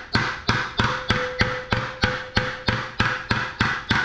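Hammer blows on a steel eye hook welded to a hollow steel water tank, about three a second in a steady run. The tank rings on with a steady tone between the strikes.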